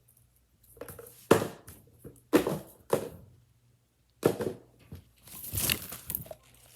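A handful of short crinkling, scratchy handling noises, with quiet gaps between them, as fidget toys are moved about close to the microphone.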